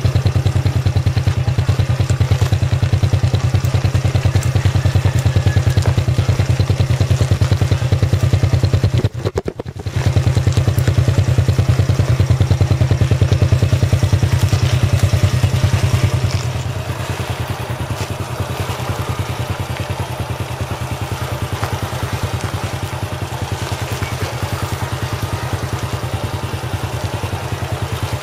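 Small motorcycle engine running steadily at low speed while the bike is ridden on a flat tyre. The sound cuts out briefly about nine seconds in and is quieter from about sixteen seconds on.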